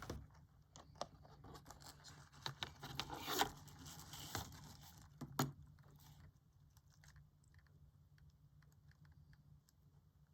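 Pencil scratching on paper in short, irregular strokes, then only faint light ticks after about six seconds.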